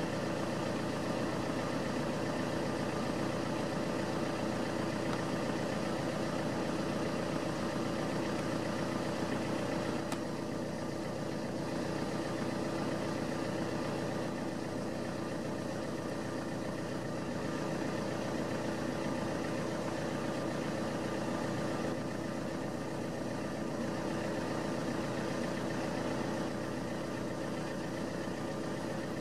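Steady engine hum, like an idling engine, with a constant low drone that eases slightly about ten seconds in.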